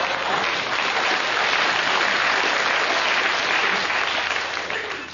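Audience applauding after a punchline, the clapping fading away near the end.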